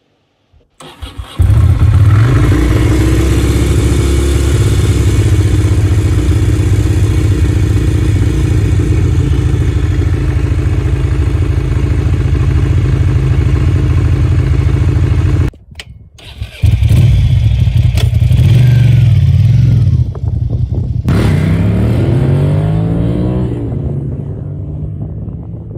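Ducati Monster 600's air-cooled 90-degree V-twin cranks and catches about a second in, then runs steadily. After a break past the middle it is heard loud on the road, then its note falls in pitch and fades as the bike rides away.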